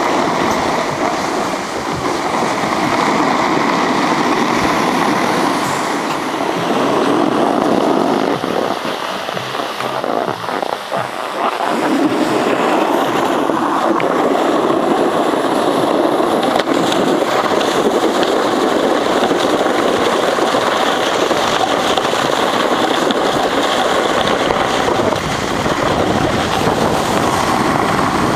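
Steady rushing of wind on the microphone while riding down a groomed ski slope, mixed with the hiss of snow sliding underneath. It eases briefly about ten seconds in.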